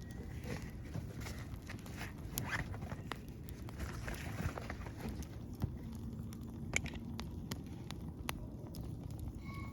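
Wood fire crackling in a small camp grill, with scattered sharp pops, and rustling of something being handled in the first few seconds.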